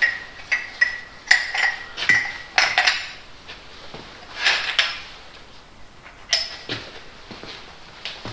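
Metal tools clinking and clattering on a workbench as they are picked up and handled: a dozen or so separate knocks, each with a brief metallic ring, coming thick in the first five seconds and fewer after that.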